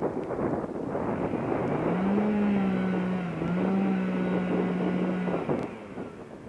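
Two-stroke chainsaw revving up about one and a half seconds in and running at a steady high speed as it cuts into an oak trunk, with a brief dip in pitch midway, then cutting off about five and a half seconds in. Wind buffets the microphone.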